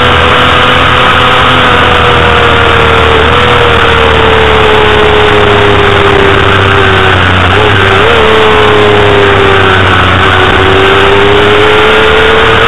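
Honda CBR250RR's 250cc inline-four engine screaming at high revs, heard from onboard over heavy wind rush. The engine note sinks slowly as the bike runs into a corner, with two brief hitches in pitch, then climbs again as it drives out.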